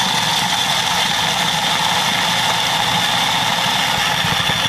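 Small electric food chopper running steadily at full speed, its blade grinding dry roasted peanuts into crumbs.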